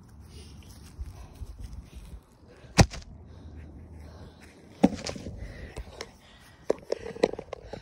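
A smartphone standing on the grass tips over with a sharp knock, then handling noise of thumps, clicks and fabric rustle as it is picked up, over a low rumble of wind on the microphone.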